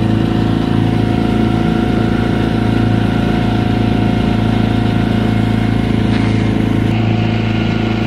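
Small boat's outboard motor running at a steady speed, an even engine drone.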